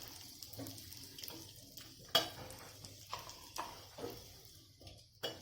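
A few scattered clinks and taps of a metal spoon against cookware while ingredients are added and stirred into a pan, over a faint hiss.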